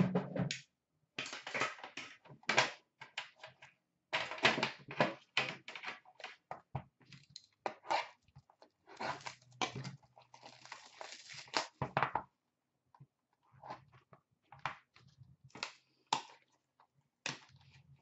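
Hands unwrapping and opening a metal Upper Deck The Cup hockey card tin: irregular bursts of crinkling, tearing packaging with short clicks and knocks from the tin.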